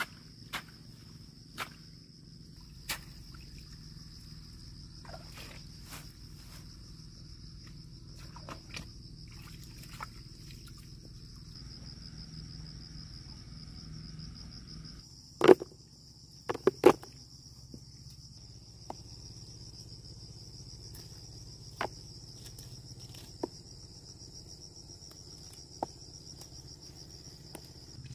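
Field insects trilling in a steady, high-pitched drone, with scattered sharp clicks and a few louder knocks about halfway through.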